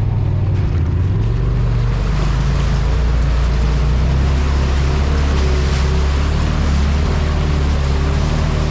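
Polaris RZR side-by-side's engine running steadily as the machine drives along a dirt trail, with wind and ground noise over it.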